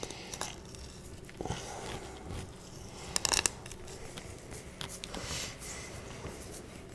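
A kiritsuke deba knife cutting a fish fillet along the rib bones: faint crunching and clicking as the blade catches on the bones, with a short, louder crackle of clicks about three seconds in.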